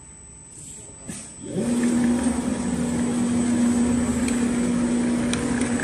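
Richpeace automatic furniture sewing machine running. Its motor rises into a steady hum about a second and a half in and holds there.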